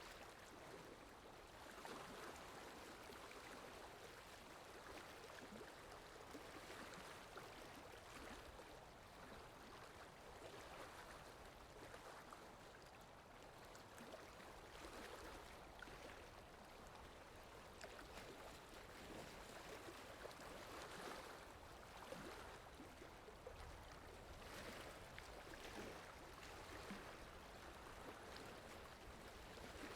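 Faint, steady hiss of food cooking, with small scattered pops.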